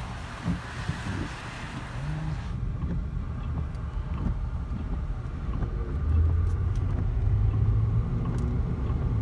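Car running along a road: a steady low engine and road rumble, with a hiss of wind or road noise that drops away about two and a half seconds in, and a heavier low drone from about six seconds.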